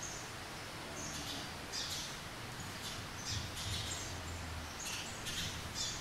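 Eurasian tree sparrow chirping: a string of short, high chirps, about one or two a second, over the steady hiss of rain.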